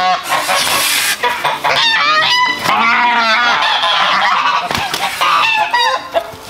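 Domestic geese honking loudly and repeatedly, several harsh calls in quick succession, from a broody white goose that has just been made to get off her nest, joined by other geese close by.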